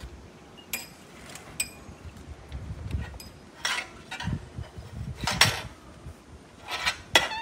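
Cutlery clinking and knocking against dishes: a handful of short, irregular clinks over several seconds.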